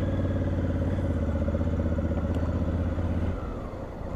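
Motorcycle engine running at a steady speed, then dropping off about three seconds in as the throttle closes, leaving quieter road and wind noise.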